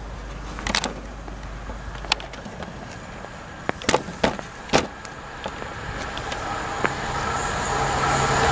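Class 66 diesel locomotive with a long freight train approaching, its engine tone and rumble growing steadily louder from about seven seconds in. Before that, a few sharp clicks and knocks stand out near the middle.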